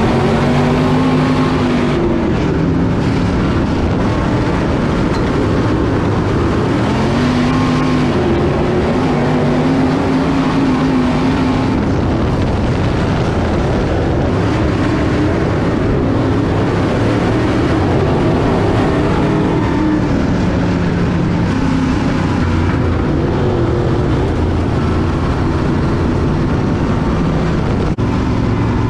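Dirt late model race car's V8 engine heard from inside the cockpit at racing speed, its pitch rising and falling over and over as the throttle is opened and closed around the dirt oval.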